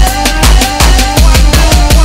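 Fast electronic music with a heavy, regular drum beat, deep bass and a repeating melody.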